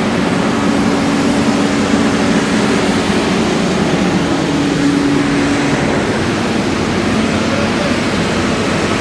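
Steady, loud running noise of fire engines' diesel engines and pumps working at a fire, with a steady low hum that fades out about six seconds in.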